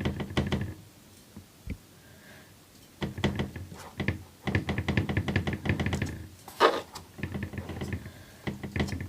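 Induction cooktop rocking on an uneven base, clattering against the table in rapid runs of knocks, with one louder knock just before the last run: the unit wobbles.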